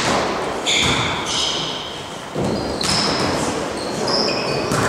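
Volleyball rally in a sports hall: the ball is struck with sharp, echoing hits, one about halfway through and another near the end. Between the hits come short high squeaks of sneakers on the court floor.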